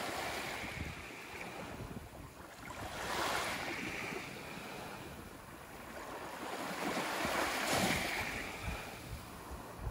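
Small waves washing up onto a sandy beach, the surf swelling about three seconds in and again, louder, near the end.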